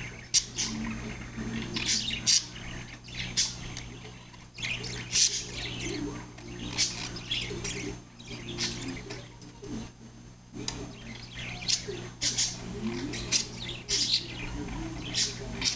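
Budgerigar singing, a continuous chattering warble broken by sharp high chirps every second or so: the contented song of a happy budgie.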